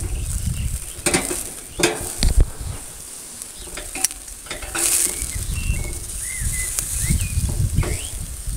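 Aubergine slices sizzling on a hot charcoal grill, with several sharp clicks of metal tongs against the grate in the first half as the slices are turned.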